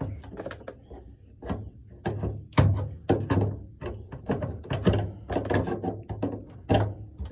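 Irregular metallic clicks and knocks as electrical cutters work at the end of a rivet on the cable attachment inside a Ford Transit's sliding door, over a faint low hum.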